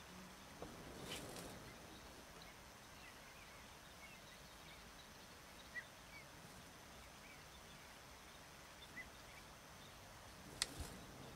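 Near-silent outdoor ambience with faint, short bird chirps scattered every second or two, and one sharp click near the end.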